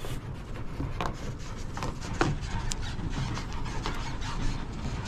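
Scattered footsteps and handling clicks on stony grassland, over the faint low running of a box truck's engine.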